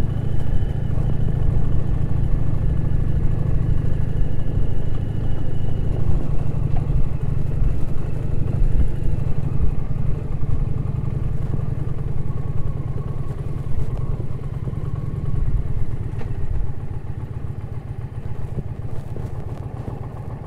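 Indian Challenger's V-twin engine running at low speed as the heavy motorcycle rides a muddy dirt track, getting quieter toward the end as it slows.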